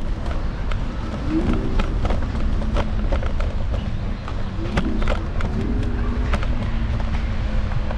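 Low wind and road rumble picked up by a camera mounted on an electric scooter's handlebars while riding, with frequent small clicks and rattles.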